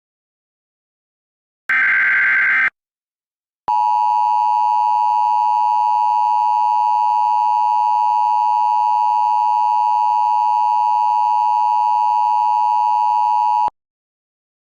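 Emergency Alert System broadcast: a one-second buzzing burst of data tones, then the EAS two-tone attention signal (853 and 960 Hz together), a steady, harsh, loud tone held for about ten seconds before cutting off abruptly. It marks the start of an emergency alert.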